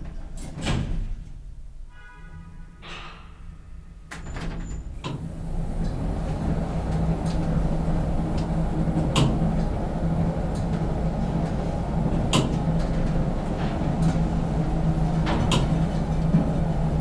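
Elevator in use: sliding doors with a couple of knocks, a short chime about two seconds in, then the car's drive starting up about five seconds in and running as a steady low hum, with a few sharp clicks along the way.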